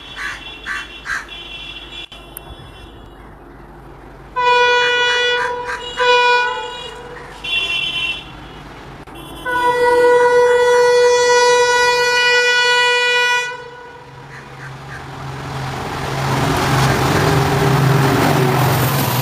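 Diesel locomotive horn: two short blasts about four seconds in, then one long blast of about four seconds. Then the locomotive's engine hum and the train's running noise swell as it passes close by.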